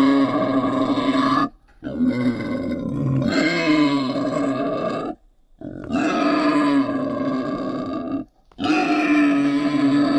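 Wild pig grunting in long unbroken runs, with three brief pauses.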